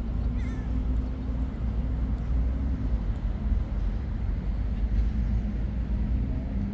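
Steady low rumble of city traffic with a faint engine hum, and a brief small chirp about half a second in.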